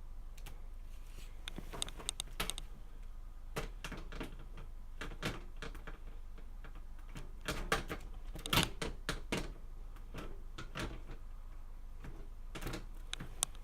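Computer case side panel being handled and fitted back onto the case, its pins being lined up: scattered light clicks and knocks, with a cluster of louder knocks about eight seconds in.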